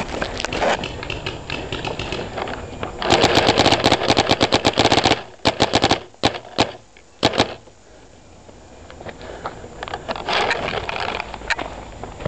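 Paintball marker firing a rapid string of shots for about two seconds, followed by a few more single shots.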